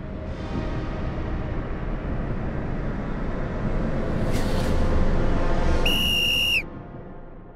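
Dramatic sound-effect build-up: a low rumbling bed that swells steadily in loudness, with a whoosh about four and a half seconds in. Then a single short referee's whistle blast, about two-thirds of a second long, after which the build-up drops away.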